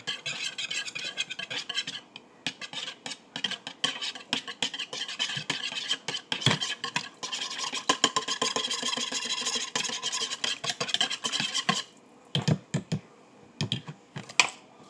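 A utensil stirring and scraping around a bowl of noodles: a fast run of scratchy clicks and rubbing that stops about twelve seconds in, followed by a few separate knocks.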